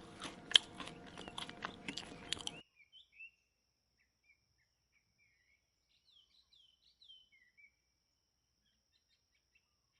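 Crunchy chewing and tearing of grass, a rapid run of crisp clicks that cuts off abruptly about two and a half seconds in. Faint bird chirps follow.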